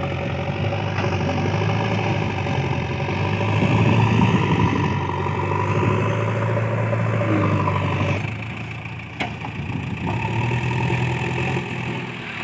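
JCB 3DX backhoe loader's diesel engine working at steady revs, rising in level about four seconds in and dropping back to lower revs about eight seconds in.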